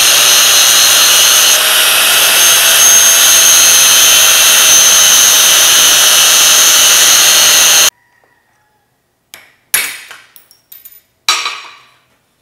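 Angle grinder running steadily with a high whine as it grinds the riveted pin tips off a link of double #40 roller chain; it cuts off abruptly about eight seconds in. A few sharp metal knocks follow.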